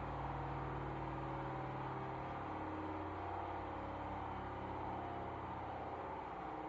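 Hoover washing machine running, the drum motor making a steady humming whine that shifts in pitch about two seconds in and again near the end. This is the running noise the owner finds too loud, though an engineer who replaced a drum suspension clip called it normal.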